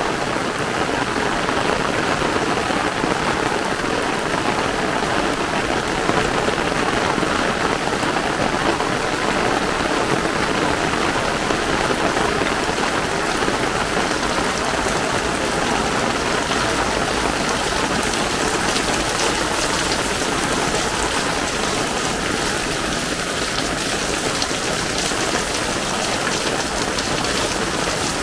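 Heavy rain pouring down steadily, a dense, even hiss of drops on wet pavement that turns slightly brighter and hissier in the last third.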